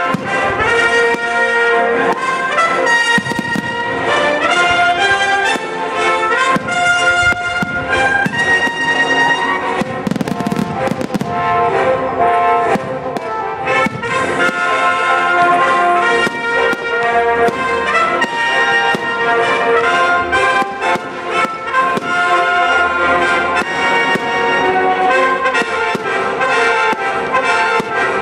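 Brass-led music playing, with fireworks banging and crackling over it throughout.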